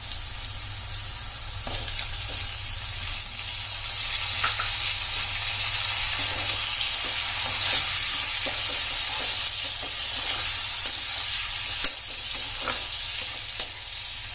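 Potato and capsicum pieces sizzling in oil in a metal kadhai as chopped tomatoes go in and are stirred with a slotted metal spatula. The sizzle grows louder after about four seconds, and the spatula scrapes and clicks against the pan now and then.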